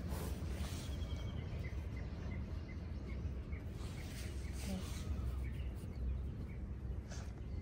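A bird calling in a run of short, evenly spaced chirps, two to three a second, over a steady low outdoor rumble.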